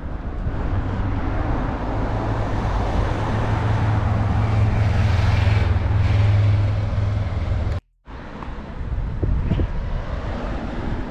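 Road traffic: a motor vehicle's engine running close by, with a steady low hum that grows louder to about six seconds. It breaks off abruptly for a moment just before eight seconds, then quieter street noise resumes.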